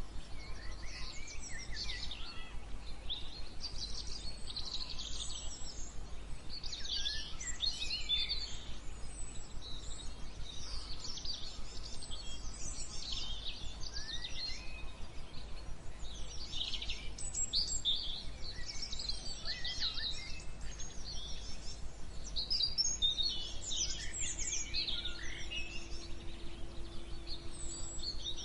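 Several songbirds singing in a morning chorus, one chirping, trilling phrase after another, over a steady low background hiss.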